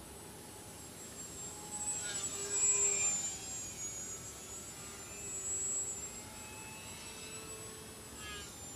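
Small electric RC aerobatic plane's brushless motor and propeller whining in flight. The pitch slides as the plane passes and manoeuvres. It grows loudest about two to three seconds in, swells again around six seconds, and falls away in pitch near the end.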